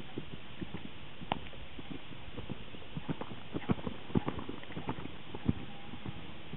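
A horse's hooves thudding on a sand arena as it moves around, the hoofbeats loudest and closest about halfway through.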